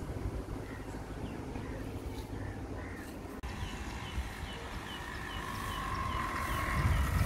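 Wind rumbling on a phone's microphone, growing louder near the end. From about three and a half seconds in, a bird chirps in a quick, even series, about two or three chirps a second.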